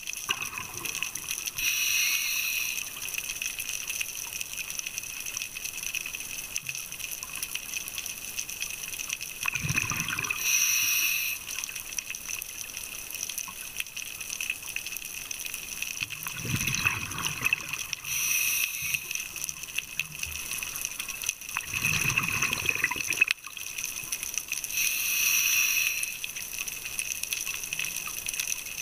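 Scuba regulator breathing heard underwater: a rush of exhaled bubbles and a hiss of inhalation, repeating several times about every six to eight seconds over a steady hiss.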